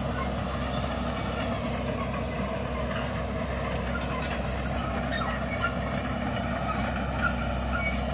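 Diesel engines of a Caterpillar hydraulic excavator and a loaded dump truck running steadily as the excavator loads soil, a low continuous rumble with a few faint clanks.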